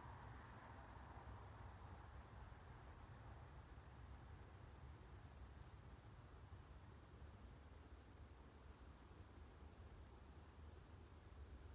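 Near silence with faint insects chirping in an even rhythm, about two high-pitched pulses a second, over a low steady background rumble. There is a single faint tick about halfway through.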